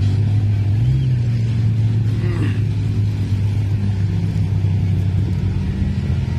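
Pickup truck engine running hard as the truck drives through a mud bog pit: a loud, steady drone that rises in pitch about a second in and holds there.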